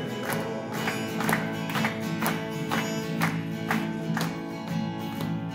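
Acoustic guitar strummed in a steady rhythm, a strong stroke about twice a second with lighter strokes between, the chords ringing on between strokes.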